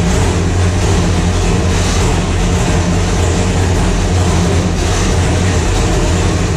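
565 cubic inch big-block V8 with cross-ram fuel injection running on an engine dyno at a steady, even idle, loud and unchanging in pitch.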